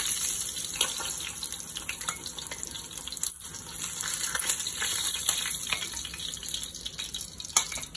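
Hot mustard oil sizzling steadily in a kadhai where rohu fish steaks have been shallow-fried, with a few light taps of a wooden spoon as the pieces are lifted out.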